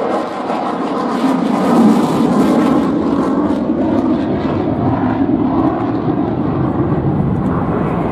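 Mitsubishi F-2 fighter's single F110 turbofan running in afterburner as the jet banks and climbs away: a loud, steady jet roar with a crackling edge, loudest about two seconds in.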